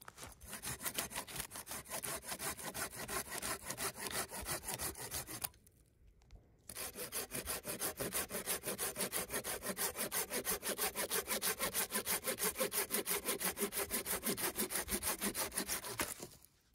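Silky Gomboy folding pruning saw cutting through small green pine stems by hand, in rapid even push-pull strokes. Two cuts: a first stem is sawn through in about five seconds, then after a brief pause a second, longer cut runs until the saw stops abruptly near the end.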